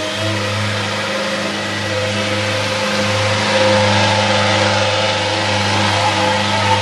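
Bad Boy zero-turn mower's diesel engine running steadily at full throttle while the mower drives.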